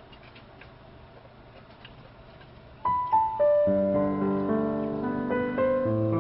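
Quiet room tone with a few faint clicks, then about three seconds in piano music starts: a few single notes stepping down, then chords over a bass line.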